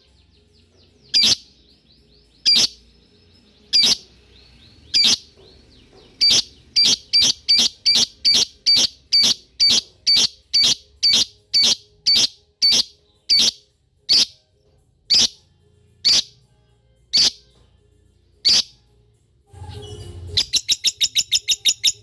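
Lovebird giving sharp, shrill chirps, at first about one a second, quickening to two or three a second through the middle, then slowing again. Near the end it breaks into a rapid run of about a dozen chirps, the fast ticking call that breeders call ngetik.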